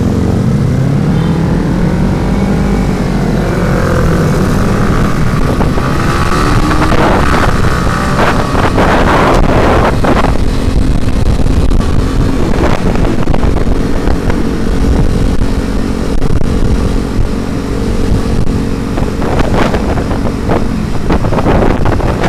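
Motorcycle engine running under way with heavy wind noise on the microphone, the engine pitch rising and falling in the first few seconds as the throttle changes.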